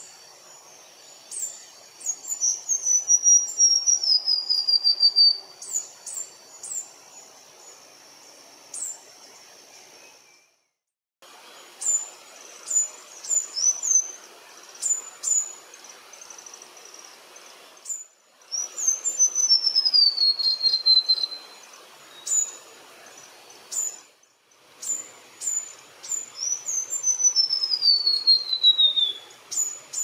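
White-browed warbler (pula-pula-assobiador) singing three times, each song a run of clear whistled notes that starts very high and steps steadily downward over about three seconds. Short sharp high chips come again and again between the songs.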